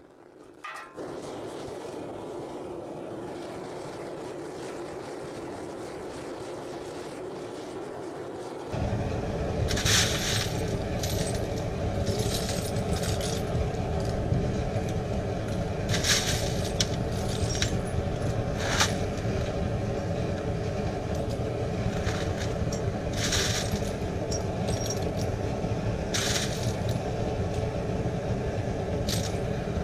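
A homemade metal-melting furnace running with a steady rushing noise that becomes much louder and deeper about nine seconds in. Over it, spent aluminium bullet casings clink sharply now and then as handfuls are dropped into a small can.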